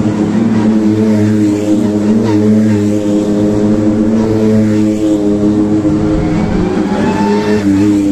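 Several Porsche 911 GT3 Cup race cars' flat-six engines running at low revs as the cars pull away one after another, a steady deep drone with a rise in revs near the end.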